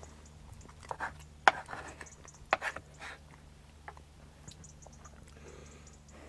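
Eating from a dish: a few sharp clinks and short scrapes of a spoon against the dish, the loudest about one and a half seconds in and another about two and a half seconds in.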